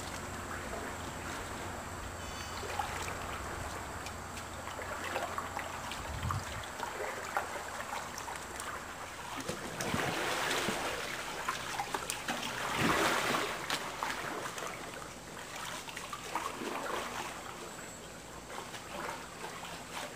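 Double-bladed paddle dipping into and splashing pool water as a small cardboard boat is paddled along, the strokes coming irregularly, with louder stretches of splashing about ten and thirteen seconds in.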